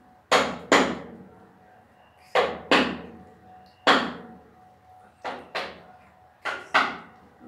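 A series of loud, sharp knocks, about nine in all, mostly in pairs about a third of a second apart, each dying away quickly.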